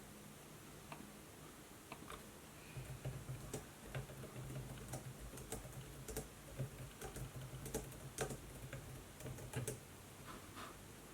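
Typing on a laptop keyboard: irregular key clicks in short runs, starting about two seconds in and stopping near the end, over a faint low hum.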